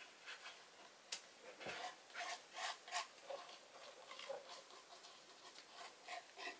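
Gloved hand rubbing wet acrylic paint along the sides of a stretched canvas: faint rubbing strokes, several close together from about two to three seconds in, with one sharp click about a second in.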